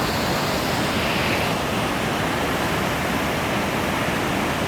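Large waterfall rushing and splashing, a steady, even roar of falling water.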